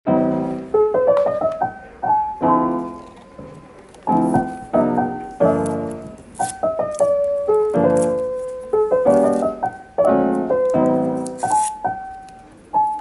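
Background piano music: chords and a melody of struck notes that ring and fade, starting suddenly out of silence.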